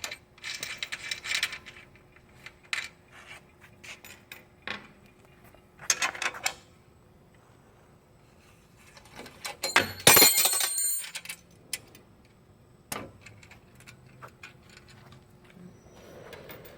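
Wrench and hardware working the rear axle nuts off a bicycle: scattered metal clicks and clinks, with a loud ringing metal clatter about ten seconds in.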